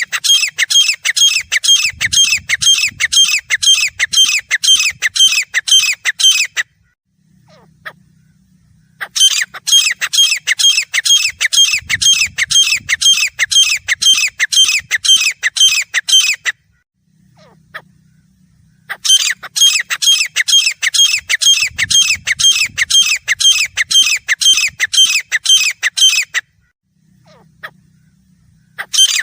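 Grey francolin calling: three bouts of rapid, harsh repeated notes, about three a second, each bout lasting about seven seconds with short pauses between, and a fourth bout starting near the end.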